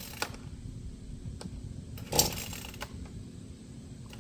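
A chainsaw's recoil starter cord pulled once, a short rasping pull about two seconds in, with a couple of faint clicks; the engine does not start running.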